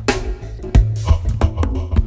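Background music with a steady beat of drum strikes about two a second over a bass line.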